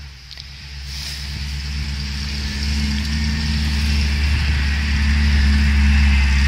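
Engine of a cab-over light truck running as it drives along a field track, growing steadily louder as it approaches.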